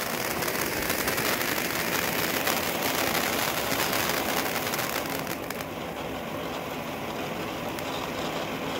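Fountain firework ('volcano') spraying sparks, with a steady hiss and fine crackle; the hiss thins a little over halfway through.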